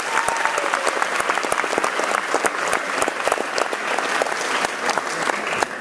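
Audience applauding steadily after a musical number.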